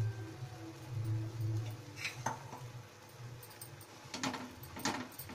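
Wooden spatula scraping and knocking against a nonstick kadhai while stirring thick wheat-flour halwa in ghee. There is a low steady hum at first, and the scrapes and clicks come from about two seconds in, loudest near the end.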